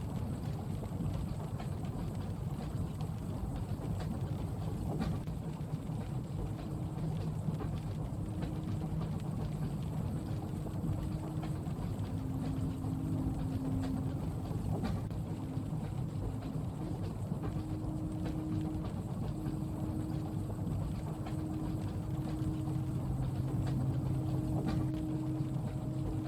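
Steady low rumble of a moving train carriage heard from inside, with rain on the window, faint shifting hum tones and scattered small ticks over it.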